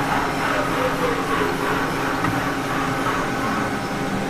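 Steady mechanical hum with a few held tones, fan-like, with no sudden events.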